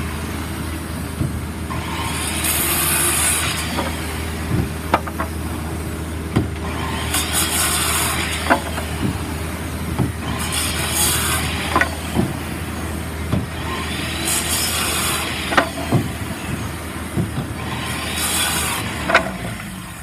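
Circular saw cutting across a bundle of lumber boards in a series of about five cuts, each a second or two long, the motor spinning up and winding down between them. Sharp knocks sound between the cuts over a steady low hum.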